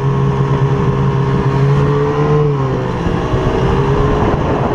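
Snowmobile's two-stroke engine running under way at steady throttle; its note rises a little, then falls off about two and a half seconds in.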